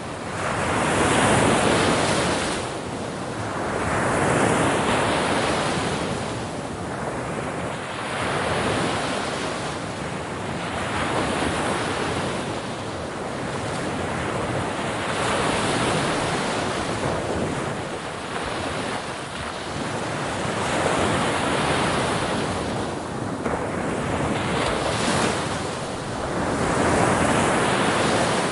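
Ocean waves breaking on the shore, the surf rising and washing back in repeated swells every few seconds, with some wind noise on the microphone.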